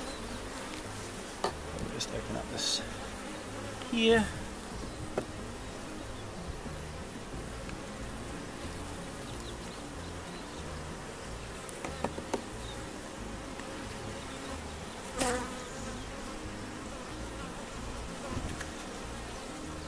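Honeybees buzzing steadily around an opened brood box, with a couple of louder, bending buzzes close by, about four seconds in and again about fifteen seconds in. A few light clicks of the hive tool working the wooden frames.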